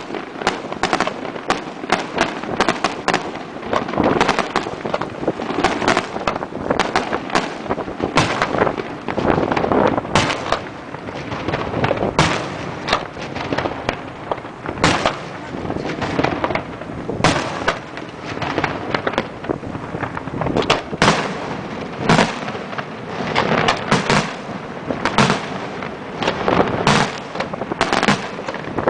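Daytime aerial fireworks: a dense, unbroken barrage of bangs and crackling reports, several a second, with some louder single blasts among them.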